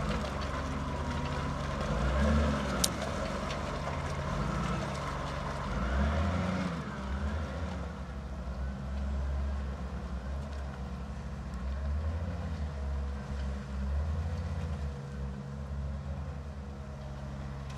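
Diesel engine of a Volvo wheel loader running under load, swelling and easing with the throttle several times. There is a single sharp click about three seconds in.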